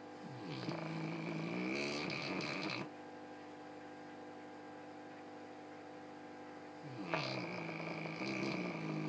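Dogue de Bordeaux snoring: two long, pitched, rasping snores, each about two and a half seconds, the second starting about seven seconds in. A faint steady hum lies underneath.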